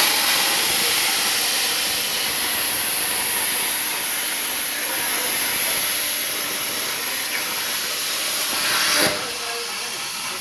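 CNC plasma torch cutting 2 mm sheet metal: a loud, steady hiss of the arc and air jet that starts abruptly and cuts off about nine seconds in, leaving a quieter hiss.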